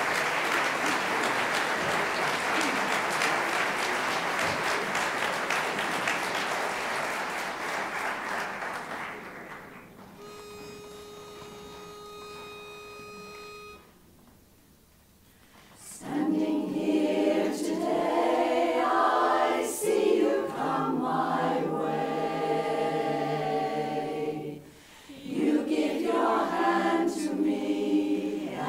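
Audience applause fades out. About ten seconds in, a pitch pipe sounds one steady note for about three seconds to give the starting pitch. After a short silence, a women's barbershop chorus begins singing a cappella in close chords, with a brief break partway through.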